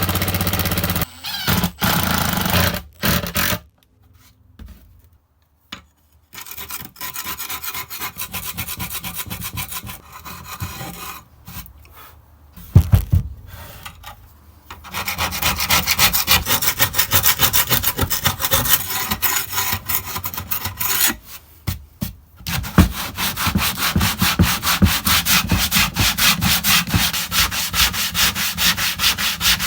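Sandpaper rubbed on wood in quick back-and-forth strokes, stopping briefly twice.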